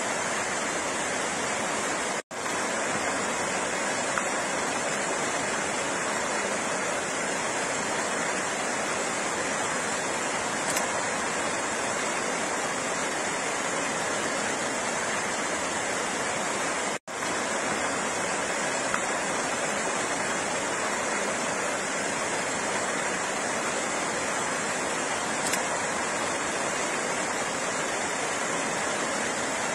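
Flowing water rushing steadily, with no music. It drops out for a split second twice, about two seconds in and again about seventeen seconds in.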